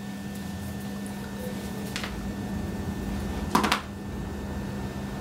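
Quiet room tone with a steady low hum, broken by two brief, soft handling noises, one about two seconds in and a slightly louder one about three and a half seconds in.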